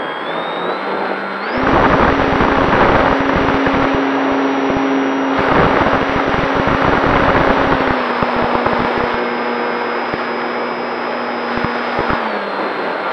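Electric motor and propeller of a Durafly Tundra RC plane heard from a camera mounted on the plane. The whine climbs in pitch at the start, jumps to full power about a second and a half in, and holds through the climb-out with heavy wind buffeting on the microphone. The pitch drops near the end as the throttle comes back.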